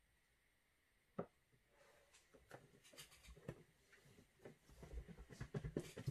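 Soft, irregular handling noises: a sharp click about a second in, then light taps, clicks and rubbing that grow busier toward the end.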